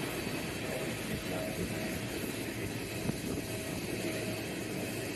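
Steady airport ambience of distant aircraft engines running: an even rumble and hiss with faint steady tones over it.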